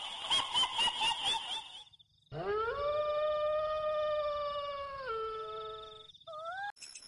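A shrill, rapidly repeated giggling cackle, the kuntilanak ghost laugh, stops about two seconds in. After a brief silence comes a long howl that rises, holds one note for about two and a half seconds, drops to a lower note, and ends with two short rising calls.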